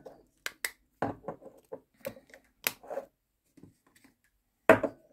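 Irregular sharp clicks and taps of spice containers and a utensil being handled, with a louder knock near the end.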